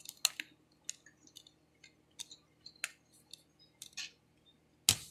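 A plastic DVD case and its discs being handled, with a string of light clicks and taps as a disc is pressed and pried off the case's centre hub. A louder sharp click or snap comes near the end.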